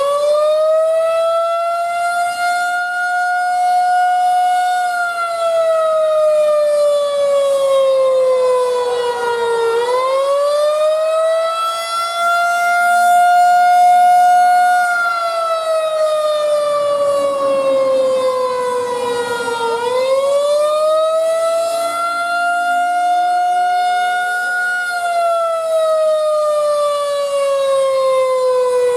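Federal Signal 2001-130 electromechanical outdoor warning siren sounding a wail: its tone climbs quickly, holds for a few seconds, then slowly falls before climbing again, about every ten seconds.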